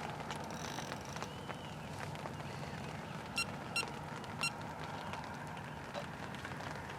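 Steady outdoor hiss with three short electronic beeps in the middle, typical of a carp bite alarm on the rod rest registering line movement.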